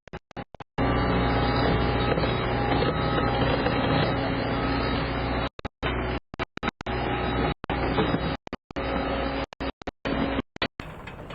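John Deere 331G compact track loader's diesel engine running steadily, the sound cutting out completely for split seconds many times over. Music begins near the end.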